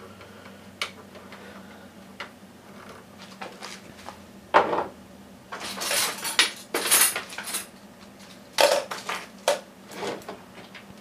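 Metal clinks and rattles from handling a desktop computer's sheet-metal chassis and drive cage: a few light clicks, a sharp knock about four and a half seconds in, then two spells of clattering metal.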